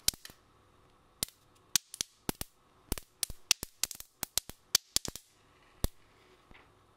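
Protective plastic film being peeled off a new laptop LCD panel, crackling in an irregular string of sharp snaps and pops that stop about six seconds in.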